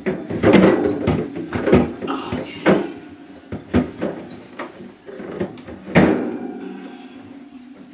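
Plastic fridge drawers and shelves knocking and clattering as they are handled and set down, an irregular string of sharp knocks, the sharpest about six seconds in.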